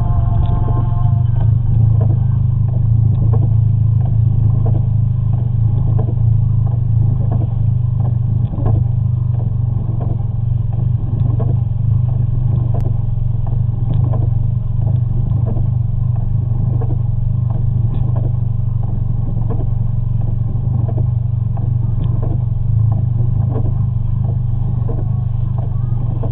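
Toyota 1ZZ-FE 1.8-litre four-cylinder engine of a 2003 Matrix XR idling roughly: a steady low drone broken by irregular light knocks. It is a rough idle of the kind that sets a P0171 (system too lean) check-engine code.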